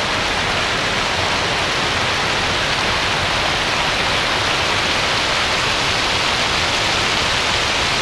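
River water rushing over a low weir close to the microphone: a loud, steady, even rush of white water.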